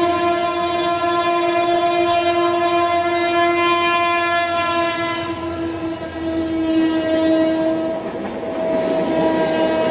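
A horn sounding one long, steady note. About eight seconds in it weakens and a rushing noise rises.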